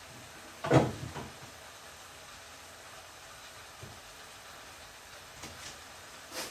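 Fish frying in oil in a pan, with a steady low sizzle. A loud sharp knock comes a little under a second in, and a few softer clicks follow near the end.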